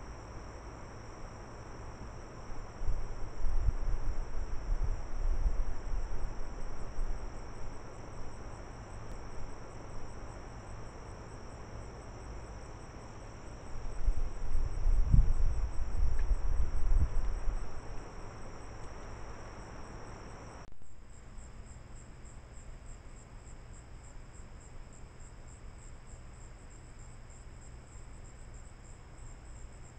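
Crickets and other night insects chirring steadily in a high, even chorus, which shifts abruptly to a different pulsing pitch about two-thirds of the way through. Twice a low rumble rises over it for a few seconds.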